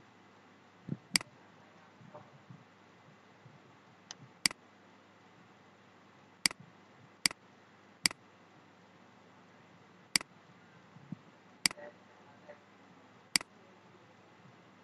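Computer mouse clicking: about eight sharp single clicks at uneven intervals over faint background hiss.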